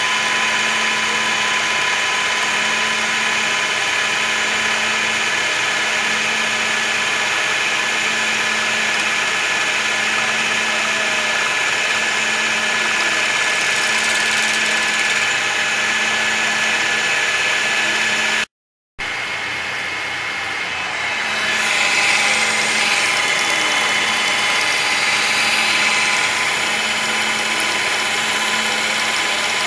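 TOS FN20 milling machine under CNC control, its end mill cutting half-inch stainless steel plate: steady spindle and motor running with a whine, a regular pulsing hum and the grinding of the cutter in the metal. The sound drops out completely for a moment a little under two-thirds of the way in, then the cutting carries on.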